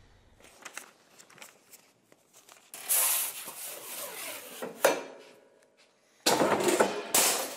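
A large aluminium sheet being slid and scraped across the bed of a sheet-metal shear. There are a few light clicks, then a loud scrape about three seconds in, a sharp knock near five seconds, and another loud scrape near the end.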